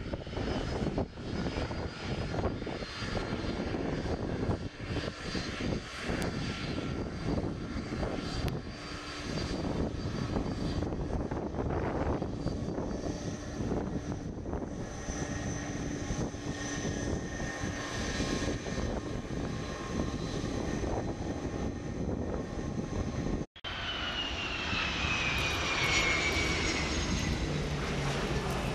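Jet engines of a FedEx Airbus widebody freighter on the runway: a steady rumble with a faint high whine. After a sudden cut about 23 seconds in, the engines of a Gemini Air Cargo three-engined freighter taking off, louder, with a falling whine as the nose lifts.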